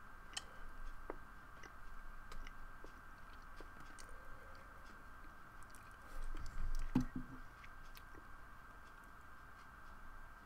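Faint scattered clicks and taps over a steady faint whine, with a louder low thump and rustle about seven seconds in.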